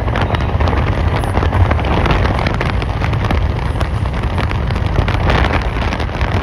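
Wind buffeting the microphone over the low rumble of a car driving along a road, steady and loud throughout.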